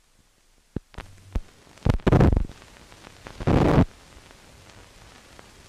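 Film soundtrack noise from the head of an old optical-sound print: a few sharp clicks, then two loud half-second bursts of crackling noise, settling into a steady hiss.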